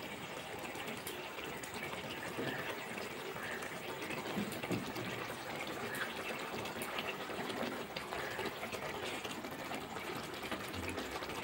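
Korma gravy of spices, yogurt and water simmering steadily in a pan with a soft bubbling sizzle as fried rui fish pieces are set into it.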